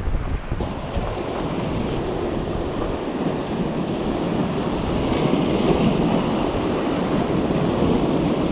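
Sea surf washing against shore rocks, with wind buffeting the microphone; the rush swells a little about halfway through.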